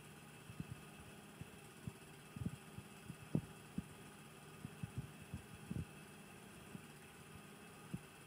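Net flaker running, its pair of tyred rollers giving a steady low hum, with irregular soft low thumps scattered through, the loudest about a third of the way in, as a drift net feeds through.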